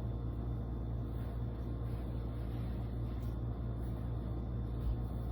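Steady low hum with no other activity: room tone.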